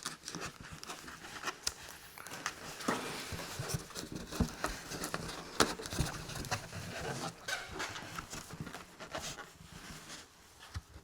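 Water dripping inside a cave: many irregular drips and ticks, each sharp and brief, echoing in the cave over a faint hiss.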